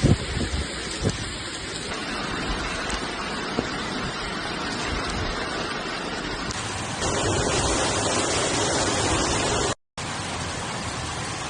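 Steady rushing water noise of heavy rain and floodwater. It changes abruptly about two and seven seconds in and cuts out briefly near ten seconds.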